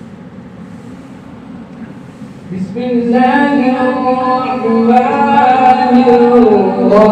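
A male qari reciting the Quran in a melodic, drawn-out tajweed style. After about two and a half seconds of a low steady hum, his voice comes in loudly on a long held phrase that slides slowly between notes.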